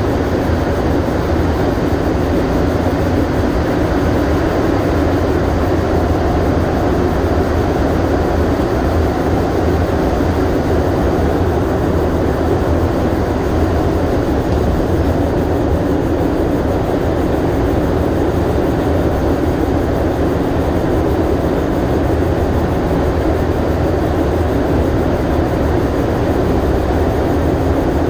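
Rubber-tyred Montreal Metro MR-73 train running steadily at speed through a tunnel, heard from inside the car: an even, unbroken rolling rumble.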